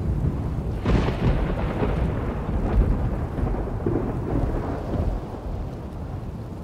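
Thunder: a sharp crack about a second in, then a low rumble that rolls on for several seconds and dies away, over steady rain.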